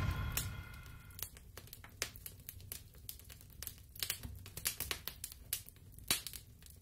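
Quiet sound effects from an animated logo intro: the tail of a boom fading away over the first second, then sparse, irregular crackling clicks.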